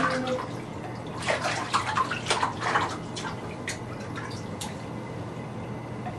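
Water splashing in a bathtub as a toddler is bathed: small irregular splashes over the first three seconds, then a few isolated drips or taps.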